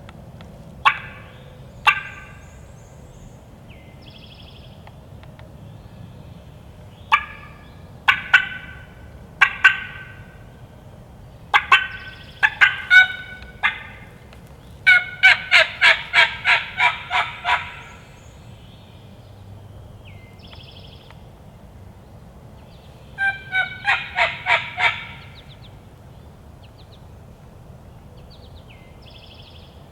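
Turkey call worked loudly by hand: sharp single cuts, then runs of yelps, a run of about eight notes just past the middle and five more near the end. Faint songbirds between.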